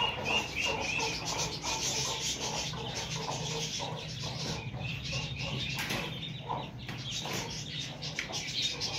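Chickens clucking in series of short, quick repeated calls, several a second, with a steady low hum underneath.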